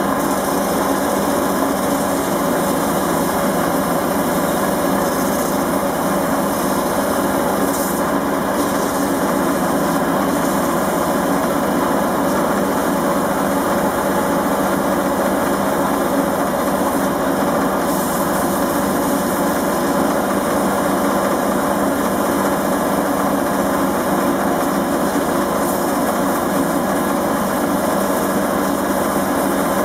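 Einhell wood lathe running steadily at speed while sandpaper is held against the spinning beech workpiece.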